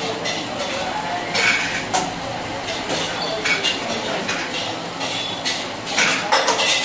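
Steel dishes and utensils clinking and clattering in irregular sharp knocks over a steady background din, with the densest clatter about six seconds in.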